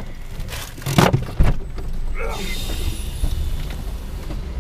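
Car door being opened from inside: a sharp click about a second in and a low thump just after. Then a steady hiss of noise, which fits outside traffic sound coming in through the open door.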